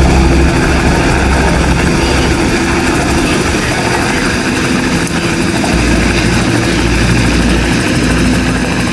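Helicopter's rotor and engine running loud and steady as it comes down and sets down on the landing pad.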